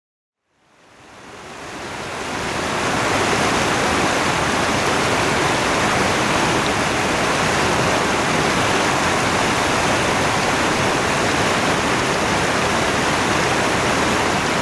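Steady rush of running water that fades in over the first couple of seconds and then holds even.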